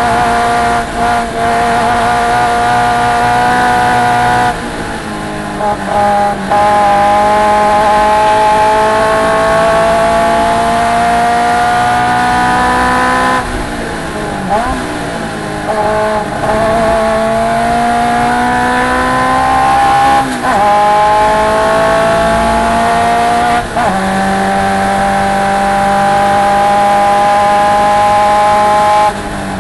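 Galloway Sports 1300 clubman race car's engine at racing speed, its note climbing steadily for several seconds at a time, then dropping sharply and climbing again, several times over.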